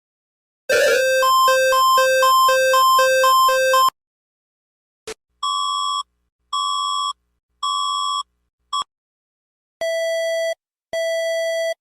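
Electronic emergency alert tones. A loud two-tone alarm alternates between a high and a low pitch for about three seconds. Then, after a click, come short beeps about once a second, which drop to a lower pitch near the end.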